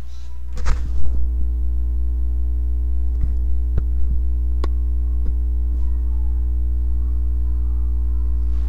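Loud, steady low electrical hum with a fainter steady higher tone above it, and a few sharp clicks in the first five seconds or so.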